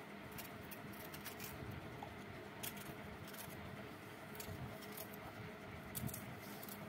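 Small knife slicing a green capsicum (bell pepper) into thin strips: a scattered series of faint crisp cutting clicks, over a steady low hum.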